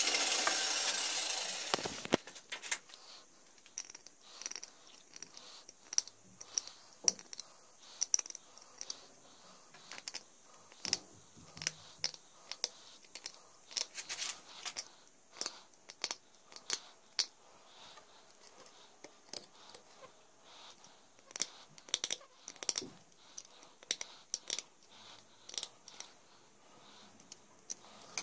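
An angle grinder with a buffing pad spins down over the first two seconds, its noise fading and falling in pitch. Then a small blade scrapes along a bone needle in short, irregular strokes, shaving it to shape.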